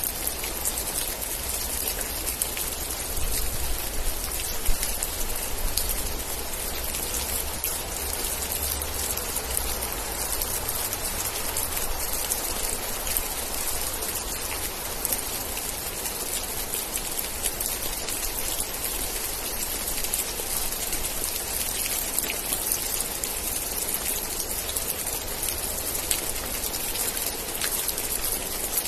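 Steady heavy rain with many close, individual drops ticking against a surface, over a low rumble that is stronger in the first half.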